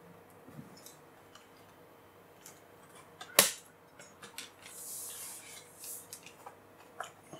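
Plastic laptop being handled: a sharp snap about three and a half seconds in as the lid is shut, then light clicks and a brief sliding rustle as the machine is turned over on the table.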